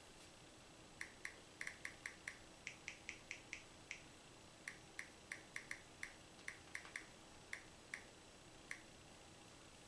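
Samsung Galaxy Tab E 9.6 playing its short keypress click sounds through its speaker as the on-screen keyboard is tapped: about two dozen faint, pitched ticks at an uneven typing pace, with a short pause about four seconds in.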